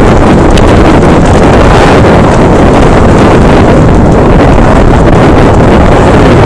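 Loud wind noise buffeting a camera microphone on a downhill mountain bike descending a dirt trail at speed, mixed with the rumble of the bike over the rough ground.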